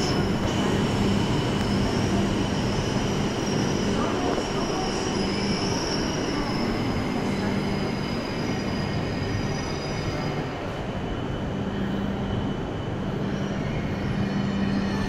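E5 series shinkansen running slowly alongside the platform as it brakes to a stop: a steady rumble with a low hum and a high squeal that fades out about ten seconds in.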